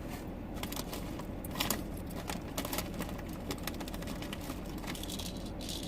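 Steady low rumble inside a parked car, with scattered light clicks and crackles over it; one louder crackle comes about a second and a half in.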